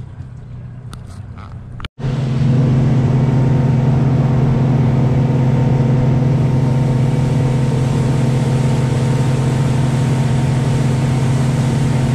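Motorboat engine running at steady cruising speed: a loud, even drone with a rush of wind and water. About two seconds in it starts abruptly after a short break, before which a quieter low engine rumble is heard.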